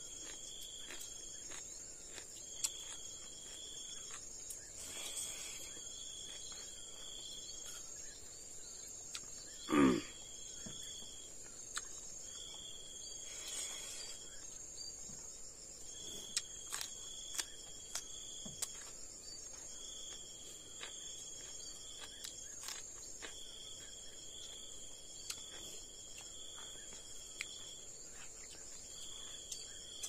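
Insects calling: a steady high-pitched drone with a lower chirping call repeated in bursts a second or so long, over small clicks and smacks of eating with the hands. One short, louder low vocal sound, falling in pitch, about ten seconds in.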